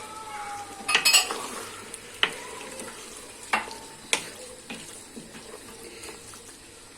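Utensil stirring chicken, mussels and cuttlefish frying in oil in a pressure-cooker pot, with a low sizzle and about five sharp clinks of the utensil against the pot.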